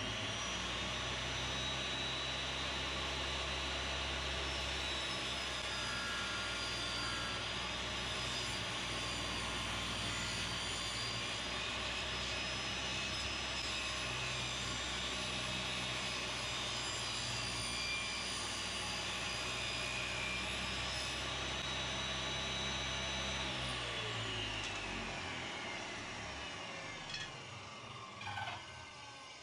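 Table saw running with a steady whine while a thin strip of wood is ripped, fed through with a push stick. About 24 seconds in it is switched off and the whine falls away as the blade coasts down, with a couple of light knocks near the end.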